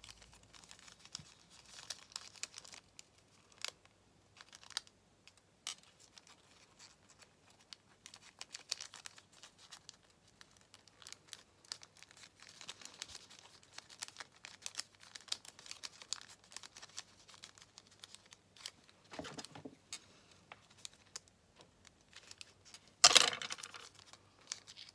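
Parchment (tracing) paper crinkling and crackling in a run of small, irregular crackles as it is folded and pinched into shape by hand, with one louder rustle near the end.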